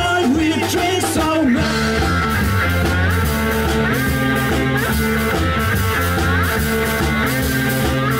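Live rock band playing: lap steel guitar with gliding slide notes over electric bass and drums. A sung vocal line ends about a second and a half in.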